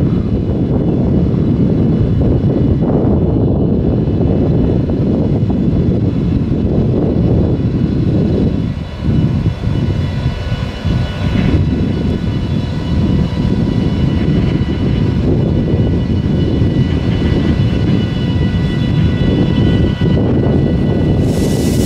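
Two VR Sr2 electric locomotives hauling a heavy iron ore train at low speed: a loud, steady low rumble with a few faint steady whining tones above it, and a brighter hiss coming in near the end as the locomotives draw close.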